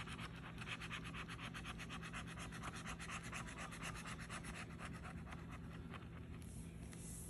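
Scratcher tool scraping the latex coating off a paper scratch-off lottery ticket in rapid, repeated strokes, stopping about six seconds in. A faint steady low hum sits underneath.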